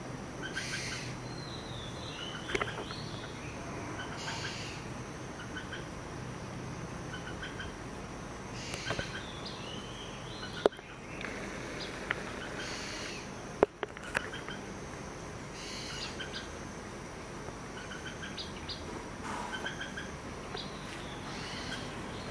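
Morning chorus of several birds singing and calling from the trees: repeated short chirps and whistled, sweeping phrases. A few sharp clicks stand out, the loudest near the middle.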